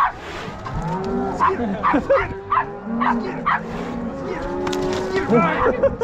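A herd of cows and calves mooing and bawling, several calls overlapping one after another.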